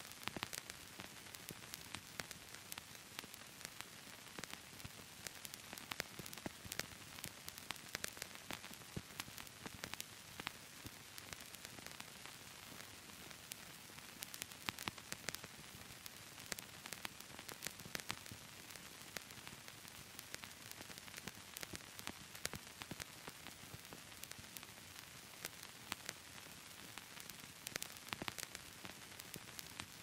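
Old tape and film crackle: a steady faint hiss with many irregular clicks and pops scattered throughout.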